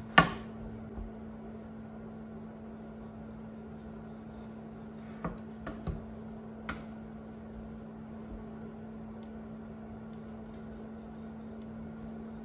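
Chef's knife slicing a tomato on a wooden cutting board: a few knocks of the blade meeting the board, a sharp one at the start, then a cluster of four soft ones near the middle. A steady low hum runs underneath.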